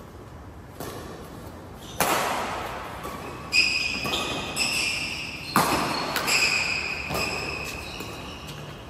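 Badminton rally: a shuttlecock struck back and forth by rackets, sharp hits about once a second with a short echo after each, mixed with high squeaks of shoes on the court floor.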